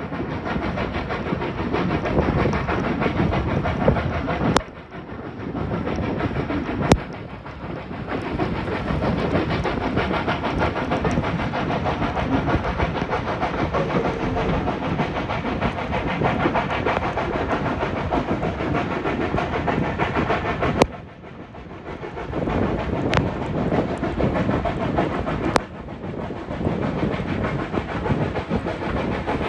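Steam-hauled passenger train running along the line: a steady rush of wheel-on-rail noise and moving air, broken by several sharp clicks and a couple of sudden brief drops in level.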